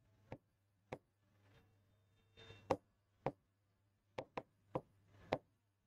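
Faint, sharp taps and clicks of a pen tip striking a writing board while writing, about eight of them at an uneven pace, over a low steady hum.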